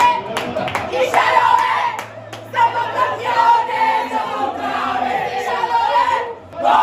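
A group of mostly female fans singing and shouting together in celebration, in high voices that hold long notes. There is a short break about two seconds in and another near the end.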